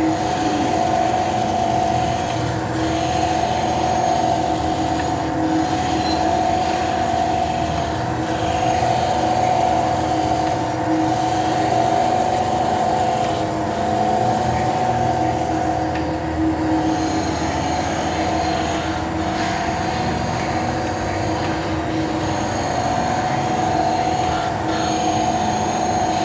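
Grinding machine grinding a steel sheet-metal press die: a steady run with a held high whine, and a slight change in the sound repeating about every three seconds.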